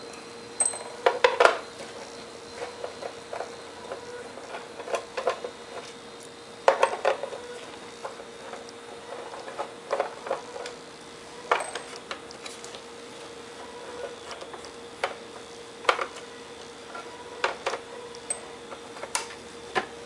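Irregular clicks, clinks and knocks of a plastic MIDI keyboard case and hand tools being handled on a workbench, with a screwdriver being set into the case screws near the end. A faint steady hum runs underneath.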